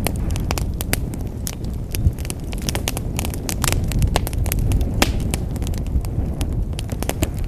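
Wood fire burning in a fireplace: a steady low rumble of flames with many irregular sharp crackles and pops.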